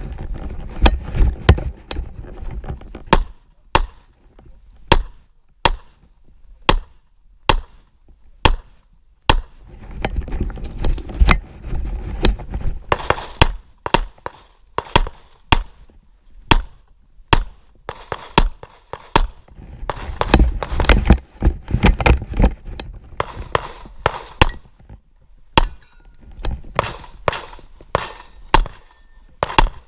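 Handgun firing a long string of shots, dozens in all, singly and in quick pairs with short pauses, as the shooter engages targets through a practical-shooting stage. Rustling noise fills several stretches between the shots.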